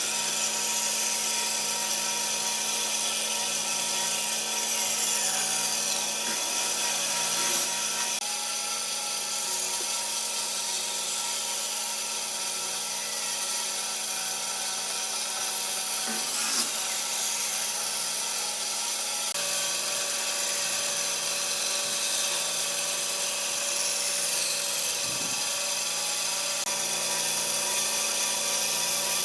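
Electric power tool running steadily under continuous load, working wood.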